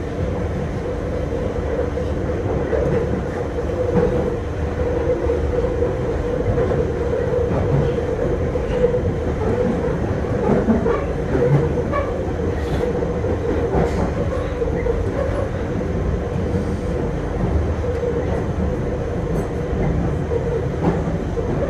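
London Underground Central line train running through a tunnel: a loud, steady rumble with a continuous droning tone over it.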